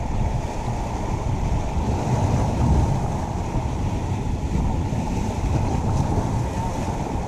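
Ocean surf breaking and washing over the jetty rocks, with wind buffeting the microphone as steady noise.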